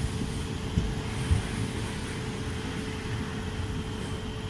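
Steady low rumble of a passenger train heard from on board, with a steady hum and two short knocks about a second in.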